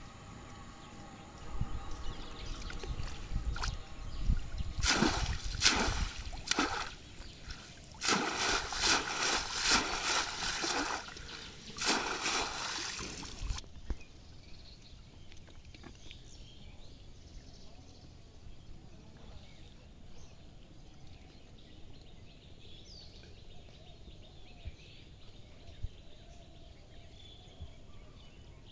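Shallow water splashing and sloshing in irregular bursts as a man wades and handles a fish trap. The splashing stops about halfway through, leaving a faint outdoor background with a few high chirps.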